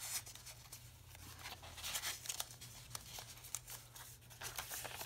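Light paper rustling and scraping as a recipe clipping is slid back into a paper pocket and a journal page is turned, with scattered small clicks over a faint low hum.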